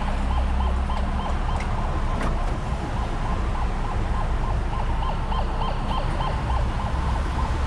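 Heavy truck's warning beeper sounding rapid, evenly spaced short beeps over the low rumble of a running diesel engine.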